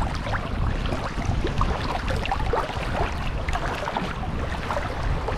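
Shallow seawater sloshing and gurgling close up around a person wading through it, with many small splashes and bubbly pops over a steady low rumble.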